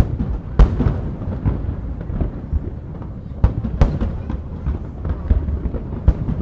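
Aerial firework shells bursting in a string of booms, the sharpest about half a second in and twice more a little before four seconds, with a constant low rumble of further bursts between them.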